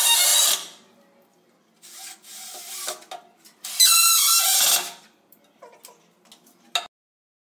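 Cordless drill driving screws into a wooden cabinet frame: a whining run that stops about half a second in, then another run of about a second near the middle. Quieter handling knocks come between, and a sharp click near the end.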